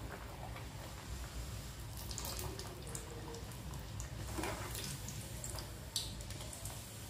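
Stuffed chana dal puri deep-frying in hot oil in a kadhai: a faint sizzle with scattered sharp crackles and clicks, over a low steady hum.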